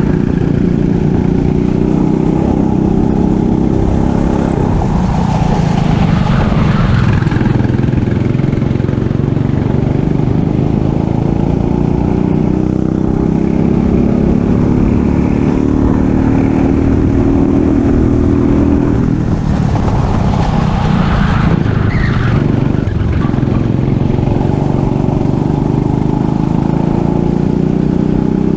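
Racing kart's engine running hard during a race lap, its pitch climbing slowly under throttle, dropping sharply about two-thirds through as the throttle comes off, then climbing again.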